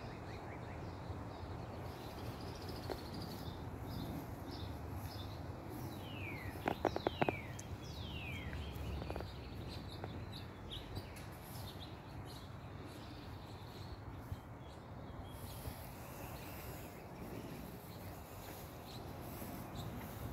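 Wind rumbling on the microphone, with outdoor birds chirping: a few short downward-sweeping calls about six to eight seconds in, and a quick run of clicks among them that is the loudest moment.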